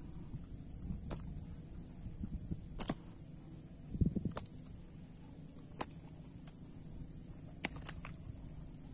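A steady high-pitched insect drone from the marsh, with low rustling, a few sharp clicks, and a dull thump about four seconds in.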